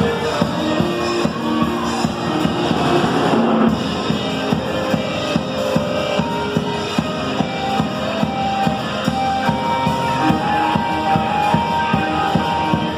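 Band music with no singing: a drum kit keeps a steady beat under guitar.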